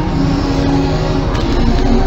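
Music with held notes that change in pitch over a low, steady drone.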